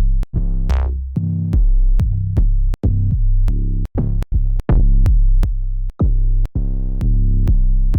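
Trap drum-kit samples, mostly deep 808 bass one-shots, played one after another at about two or three a second with short gaps between them. One or two of them carry a falling sweep.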